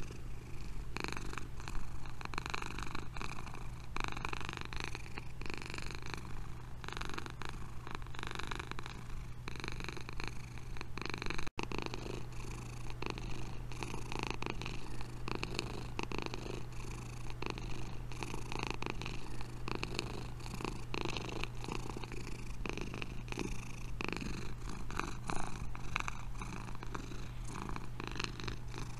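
Domestic cats purring, a steady rhythmic rumble. The sound drops out briefly about a third of the way through, where one cat's purring gives way to another's.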